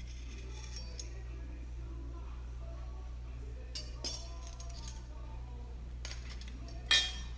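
Metal measuring spoon and knife clinking lightly against each other and the bowl while a tablespoon of sugar is levelled and tipped into a strainer, with one sharp clink near the end, over a steady low hum.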